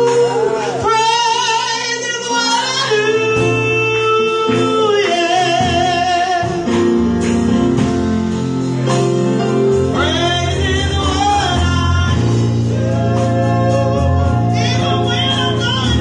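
A woman singing a gospel song into a handheld microphone, holding notes with vibrato and running melismatic lines, over instrumental accompaniment with sustained low bass notes.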